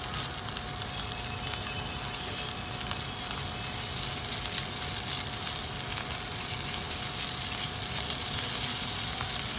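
Chopped garlic sizzling steadily in melted butter in a nonstick frying pan while being stirred with a silicone spatula, with a faint steady tone underneath.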